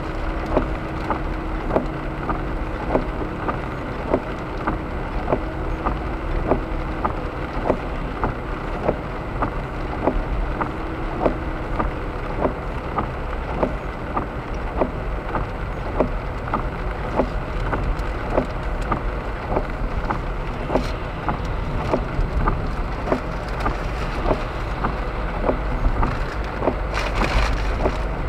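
Car cabin noise while driving on wet streets in rain: a steady low road rumble with tyre hiss, and a regular light tick about one and a half times a second. A brief louder hiss comes near the end.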